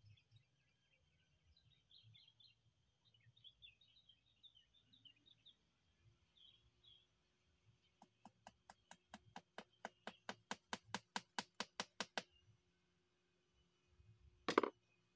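Birds chirping faintly in the background, then a rapid run of about twenty sharp clicks over four seconds, coming slightly faster and getting louder, and a single louder knock near the end.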